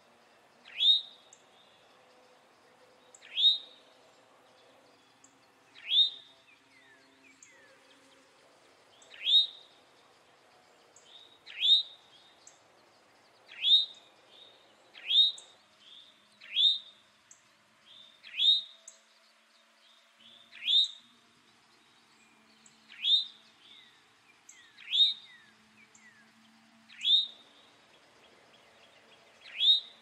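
Male eastern towhee giving its alarm call: one short, sharp, high note repeated about every two seconds, some fifteen times.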